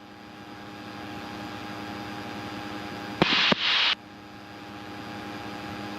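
Light aircraft's piston engine and propeller droning steadily, heard through the cabin intercom with a constant hiss. About three seconds in, a brief burst of hiss framed by clicks cuts in for under a second.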